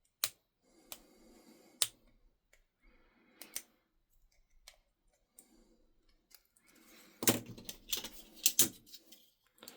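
Small metal clicks and taps of a lock pick and tensioner working in a Brinks 30mm padlock. Single clicks come about once a second, then a quicker run of louder clicks near the end.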